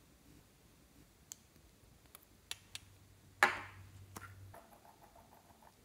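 A few light clicks and taps of a metal spatula against a small plastic cosmetic pot, with one sharper click about three and a half seconds in.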